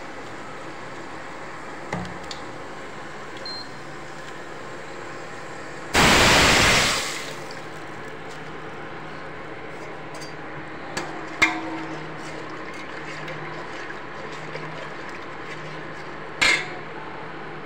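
The kadhi mixture of yogurt and gram flour is poured into hot tempering oil in a steel pot and sizzles loudly for about a second before dying away. Later a spoon knocks against the steel pot once, and then clatters loudly near the end.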